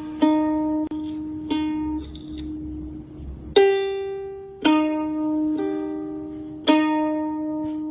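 Background music: slow single plucked notes, each starting sharply and ringing out, about one a second.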